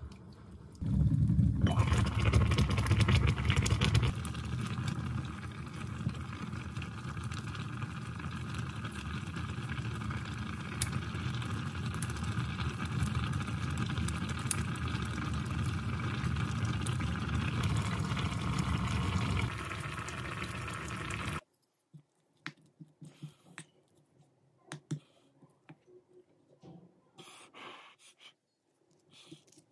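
Pot of pork and aged-kimchi stew boiling, a steady bubbling, loudest for the first few seconds. It cuts off abruptly a little past two-thirds of the way through, leaving only a few faint clicks.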